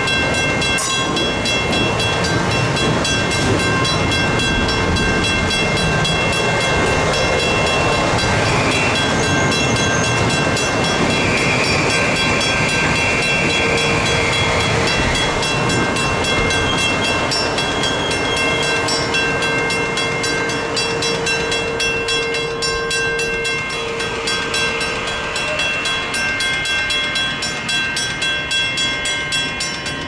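Passenger train running past close by: a loud, steady rumble of wheels on rail with several high, steady tones over it. In the last third it gives way to a rhythmic clatter of wheels over rail joints.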